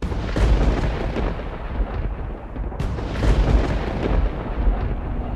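Intro sound effect of a deep, continuous rumble like rolling thunder, broken by sharp cracks every second or so.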